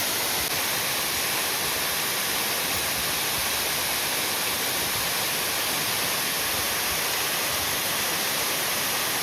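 Waterfall pouring: a steady, unbroken rush of falling water, hissy and even throughout.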